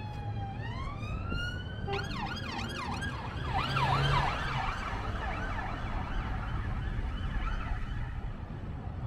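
Police car siren: a slow rising wail that switches about two seconds in to a fast warbling yelp, loudest around four seconds in and fading away near the end, over a steady low traffic rumble.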